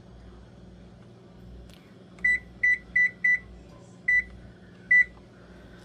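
Whirlpool electric range control panel beeping as the timer button is pressed: six short, identical beeps, four in quick succession about a third of a second apart, then two more spaced about a second apart, each one confirming a press while the oven timer is set.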